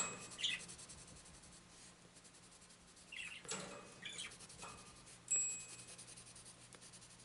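Prismacolor Premier cool grey colored pencil shading lightly on paper: faint scratchy strokes, with a few louder ones about three and a half, four and five seconds in, the last with a brief high chirp.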